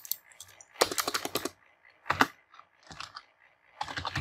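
Computer keyboard keys being pressed to delete typed text: a quick run of key clicks about a second in, then shorter clusters of clicks roughly a second apart.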